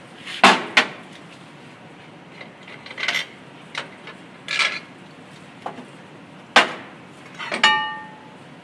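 Metal clanks and knocks as a brake drum and its mounting hardware are taken off a brake lathe's arbor. There are about eight separate knocks, loudest near the start and again later on, and the last one rings briefly like struck metal.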